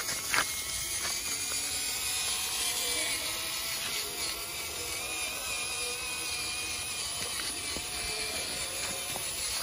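Electric drive motor and gears of a scale RC Willys jeep whining as it crawls slowly over rough dirt in low-speed crawling mode, the pitch wavering up and down with the load. A sharp click about half a second in.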